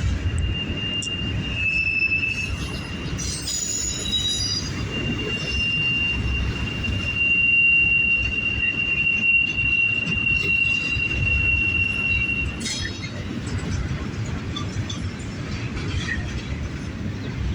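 Double-stack freight train rolling past with a low rumble, its wheels squealing in one long steady high-pitched tone that stops about twelve and a half seconds in.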